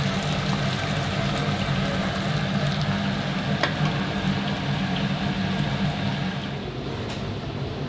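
Whole chicken deep-frying in hot oil: a steady bubbling sizzle over a steady low hum, thinning near the end. A single sharp click about three and a half seconds in.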